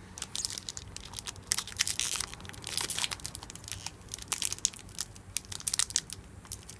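Foil wrapper of a Pokémon trading card booster pack crinkling and tearing as it is pulled open, a dense run of crackles and rips.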